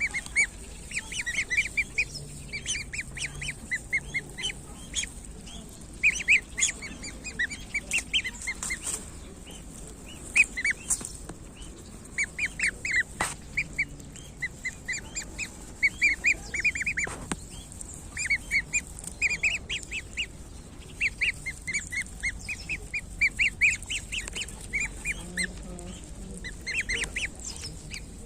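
A group of week-old goslings peeping: many short, high-pitched calls in quick runs, overlapping and repeated throughout.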